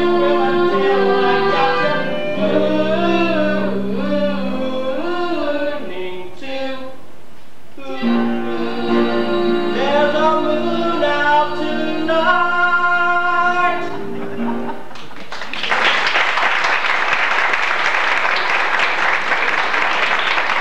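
A musical number from a stage show: singing with instrumental accompaniment, with long held notes, ending about fifteen seconds in. Audience applause follows and continues to the end.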